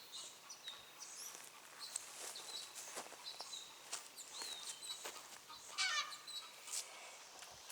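Faint outdoor bird calls: scattered short chirps, with one louder, harsher call about six seconds in.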